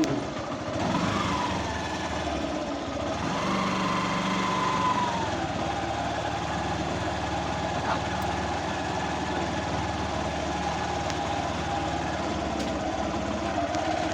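A vehicle engine running steadily, its whine falling in pitch near the start, rising and falling again around four to five seconds in, and rising once more at the end, like an engine changing speed on the move.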